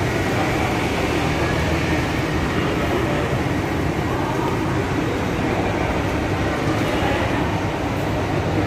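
Steady low rumbling hum with a constant level, the background noise of a large indoor building.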